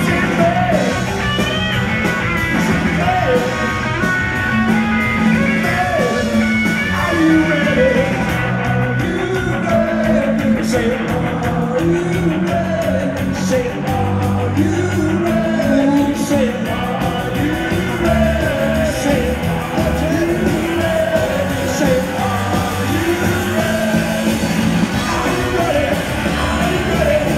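A punk rock band playing live, with electric guitar, bass, drums and keyboards under a sung lead vocal, heard from the audience in a concert hall.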